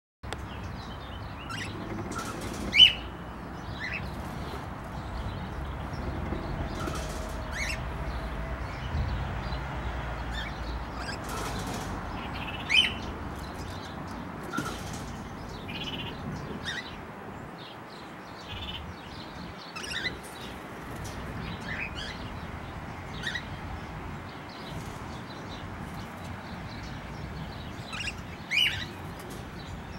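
Cockatiels calling: a few loud, short, sharp calls spaced several seconds apart, with quieter short chirps in between.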